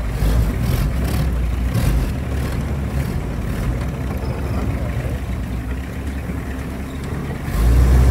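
Off-road vehicle engine running as it crawls along a rough dirt track, with a few knocks and rattles from the body in the first couple of seconds. The low rumble swells louder near the end.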